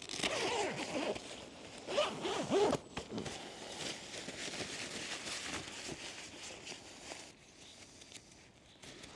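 Tent door zipper on a Fjällräven Abisko Lite 1 being pulled in two quick runs within the first three seconds, followed by quieter rustling of the tent fabric.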